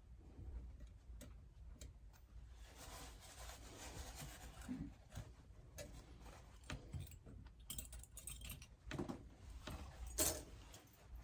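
Irregular small clicks and taps of metal tools and brass clock parts being handled at a workbench, with one sharper click about ten seconds in.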